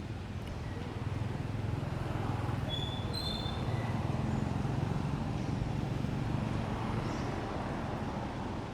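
A motor vehicle's engine running nearby, growing louder from about a second in and easing off again near the end, as if passing. A few short high chirps sound about three seconds in.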